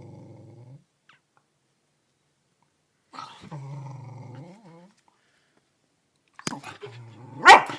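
Dog growling low twice, each growl lasting a second or two, then a few sharp snaps and one loud bark near the end.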